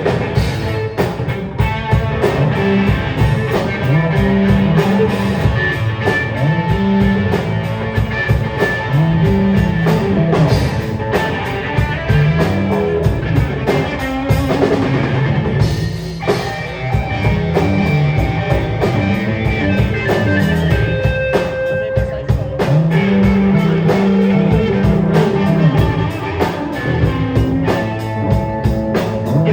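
Rock band playing live: electric guitar over bass and drum kit, with a moving bass line.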